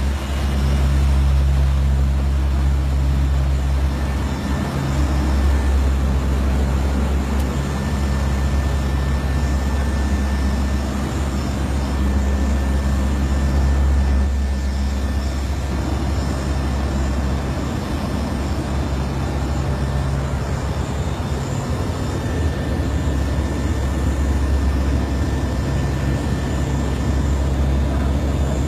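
Aircraft engines and rushing air heard inside the cockpit in flight: a steady, loud drone with a strong low hum and a few steady low tones.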